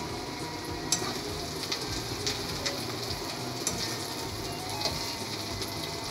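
Steady, fairly quiet sizzling of oil frying in a kadai, with scattered faint ticks and crackles.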